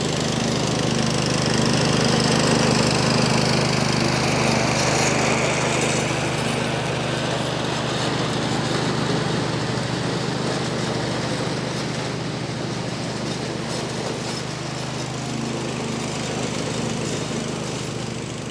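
About 25-horsepower Ariens riding lawn tractor engine running steadily while it mows. It is loudest a few seconds in, then slowly fades as the tractor moves away.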